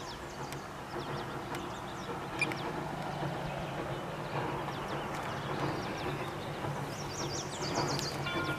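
Canadian Pacific 136, a 4-4-0 steam locomotive, approaching in the distance: a faint steady rumble. Birds chirp over it, most thickly near the end.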